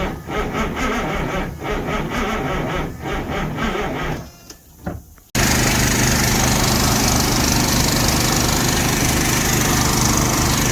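Irregular knocks and clatter over a low hum, dying away. Then, after an abrupt cut, a diesel truck engine runs steadily and loudly with a strong hiss.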